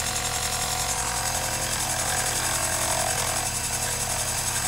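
Metal lathe running steadily as it takes a turning pass on a rifle barrel: a constant machine whir with a few steady hums.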